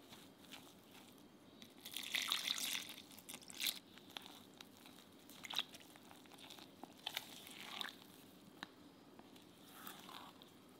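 Silicone spatula stirring and scraping a thick, floury cake batter in a glass mixing bowl, in irregular strokes; the loudest stretch comes about two seconds in.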